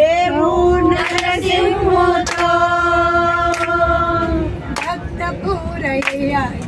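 A group of women singing a devotional bhajan together. They hold one long note for about four seconds, then the melody moves on. Sharp hand claps keep time about once a second.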